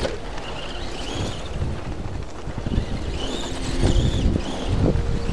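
Arrma Granite Voltage RC truck's brushed electric motor whining up and back down twice as the truck speeds up and slows. Wind rumbles on the microphone throughout.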